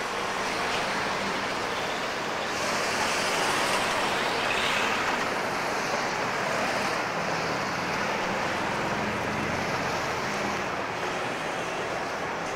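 City street traffic: cars, a van and trucks running and passing close by, a steady wash of engine and road noise that swells a little a few seconds in.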